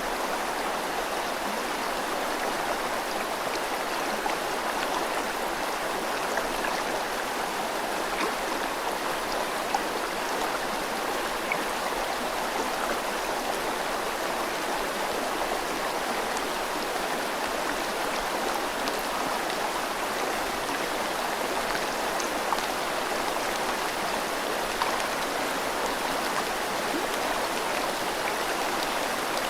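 Steady, even rush of a flowing river mixed with falling rain, with a few faint drop ticks now and then.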